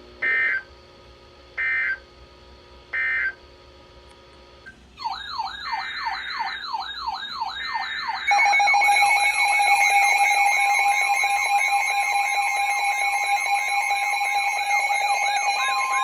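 Three short data-burst chirps of the Emergency Alert System end-of-message code, about a second and a half apart. After that, electronic alert alarms start: several fast-warbling tones overlap, and steady alarm tones join in and make it louder. A steady single alert tone comes in near the end.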